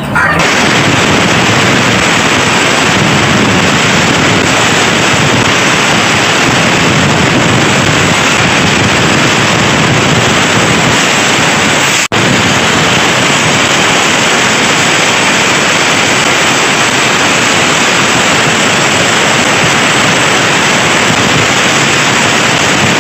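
Angle grinder with a sanding disc running steadily as it sands the edges of a wooden picture frame. The sound cuts out for a moment about halfway through.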